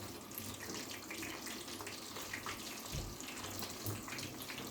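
Eggplant slices sizzling in hot oil in a frying pan, a steady crackling hiss.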